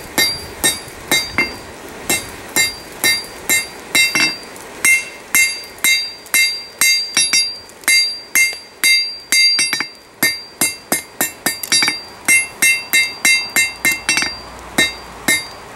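Blacksmith's hand hammer striking a red-hot steel bar on an anvil to draw it out for length: a steady run of blows, two to three a second, each with a bright metallic ring from the anvil.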